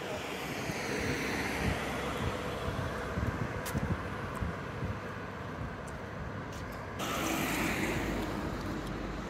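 Passing road traffic: the noise of a vehicle going by swells at the start and falls away, and another swell comes in suddenly about seven seconds in.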